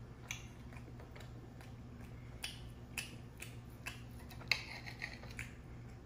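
Faint eating sounds: irregular soft clicks and smacks, about one every half second to second, from a person chewing steak and working a knife and fork on a plate. A low steady hum runs underneath.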